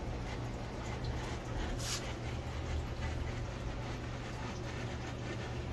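Steady low hum of an air conditioner running, with one sharp click about two seconds in.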